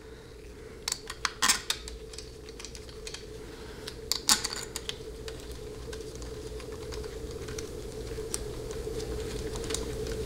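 Light metallic clicks and taps as a throttle valve (TV) bracket and its linkage arm are fitted onto a 700R4 transmission's valve body. The clicks come in a cluster about a second in and again around four seconds, with scattered ticks after, over a steady hum.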